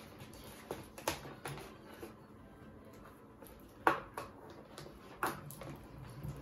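Wooden sticks stirring slime in plastic tubs, knocking against the plastic in a few sharp taps, the loudest about four seconds in.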